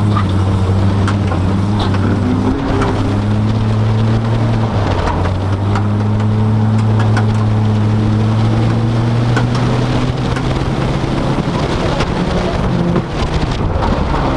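Car engine and road noise heard from inside the cabin while driving: a steady low engine hum that shifts briefly a few seconds in, over a haze of tyre and wind noise, with scattered faint clicks.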